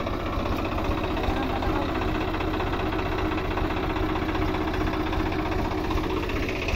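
Swaraj 744 XT tractor's three-cylinder diesel engine running steadily as the tractor drives slowly across the field.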